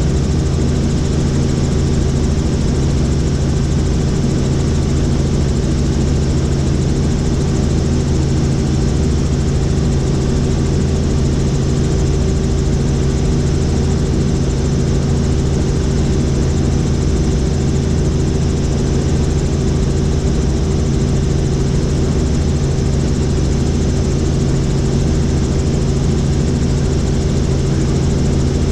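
Helicopter in flight heard from inside the cabin: a steady engine and rotor drone with a strong low hum that holds level throughout.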